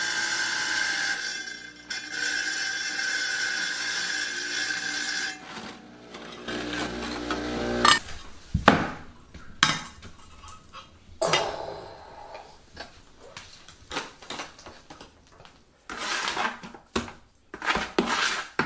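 Tabletop tile saw running as a ceramic floor tile is pushed through the blade: a steady sound for about five seconds that changes and dies away about eight seconds in. Then scattered knocks, clinks and scrapes of tiles being set and thinset mortar being scooped from a plastic bucket.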